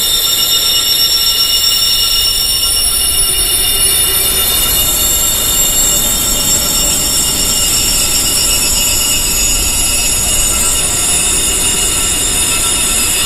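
Wind chimes ringing continuously: many overlapping high, steady metallic tones over a constant hiss.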